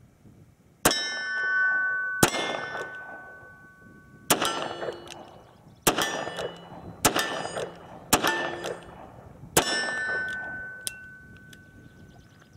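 Seven .38 Special shots from a Smith & Wesson 686 Plus revolver, fired one to two seconds apart, each followed by the ringing of a steel silhouette target being hit.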